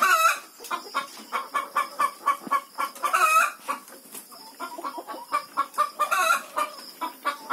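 A flock of caged chickens clucking, many short clucks overlapping, with a few louder drawn-out calls near the start, about three seconds in and about six seconds in.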